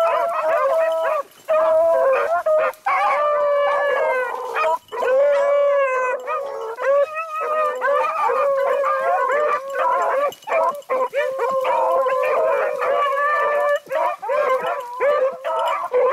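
A pack of beagles baying together, several voices overlapping almost without pause, as the hounds run a rabbit's scent trail.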